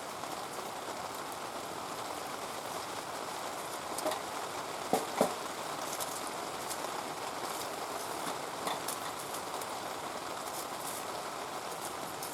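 Heavy rain falling steadily, with a few short sharp knocks about four to five seconds in.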